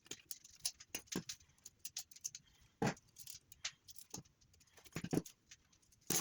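Irregular light clicks, clinks and knocks, with a louder knock about three seconds in and again about five seconds in: parts of an electric kettle being handled and worked loose while it is taken apart.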